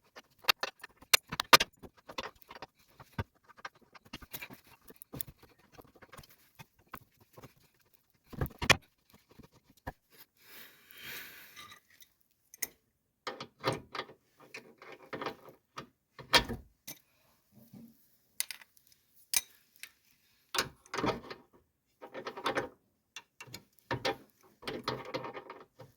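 Metal hand tools clinking and clattering as wrenches and sockets are handled: irregular sharp clicks and knocks, with a few short rattling passages.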